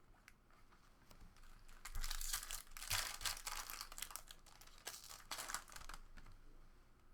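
Foil wrapper of a Chrome soccer trading-card pack being torn open and crinkled by hand, in crackling bursts from about two to six seconds in.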